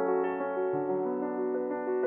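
Background piano music, notes and chords sounding one after another and ringing on.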